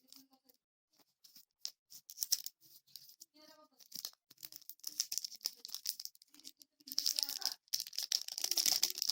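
Plastic packaging crinkling and rustling, with scattered clicks and taps, as a new smartphone is handled and unwrapped; the rustling gets denser and steadier near the end.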